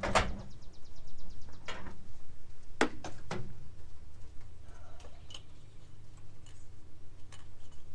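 Plastic ignition coil packs and their wiring connectors being handled and seated on a V6 engine's front bank: a handful of short, sharp plastic clicks and knocks, scattered and irregular.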